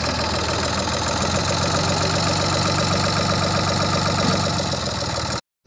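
Sonalika tractor's diesel engine running steadily with the tipping trailer raised. The sound cuts off abruptly just before the end.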